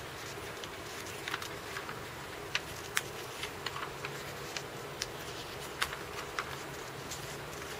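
Pages of a large bound sketchbook being handled and turned, the paper giving irregular sharp clicks and crackles over a steady hiss.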